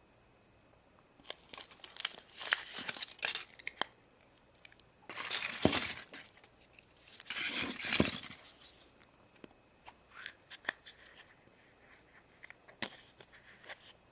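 The foil wrapper of a Kinder Surprise chocolate egg being torn open and crinkled in the hands, in three bursts of crackling, followed by a few sharp clicks and taps of handling.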